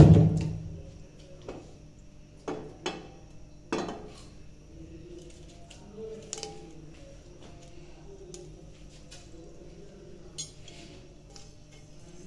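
Metal kitchenware clattering around a nonstick frying pan: a loud knock at the very start that rings on briefly, then scattered clinks and taps.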